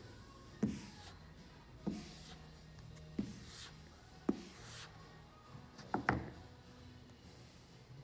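Hand wet-sanding with 600-grit paper on a pad over automotive primer: quiet rasping strokes, about five of them, a little over a second apart.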